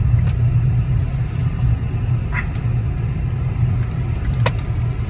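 Steady low engine and road rumble inside a Jeep Patriot's cabin while it is driven, with a couple of sharp clicks near the end.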